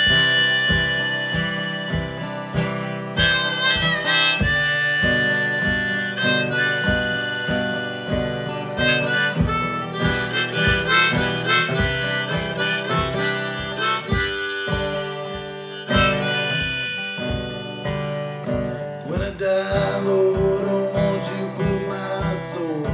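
Harmonica held in a neck rack, playing a melody of held and shifting notes over steadily strummed acoustic guitar.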